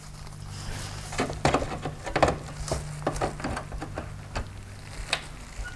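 Needle-nose pliers and a gloved hand working at the plastic mounting clips of a Mercedes-Benz A-Class LED headlight housing: a run of small irregular clicks, taps and scrapes as the clips are squeezed, over a steady low hum.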